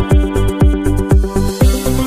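Background electronic dance music with a steady kick-drum beat and sustained synth notes, and a hissing rise building up near the end.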